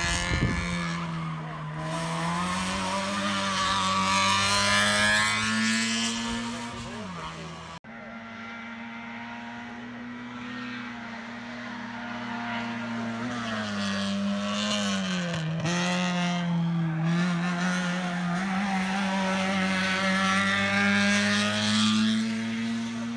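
Race car engine at high revs on a hill climb, its pitch rising and dropping as it accelerates and shifts gear. About eight seconds in the sound breaks off abruptly and another stretch of hard-revving engine follows.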